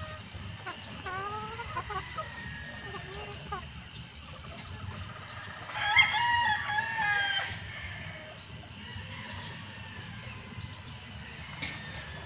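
Chickens in a pen: hens clucking in short calls, then a rooster crows once, starting about six seconds in and lasting about a second and a half, the loudest sound. A single sharp click comes near the end.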